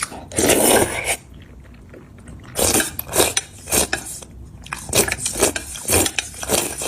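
Eating sticky noodles with soybean paste: a longer noisy mouthful sound in the first second, then chewing in a run of wet bites about two a second.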